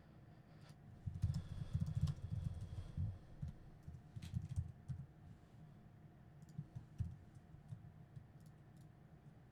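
Typing on a computer keyboard: irregular key clicks and thuds, in a quick run from about one to three seconds in and another burst around four to five seconds, then sparser single keystrokes.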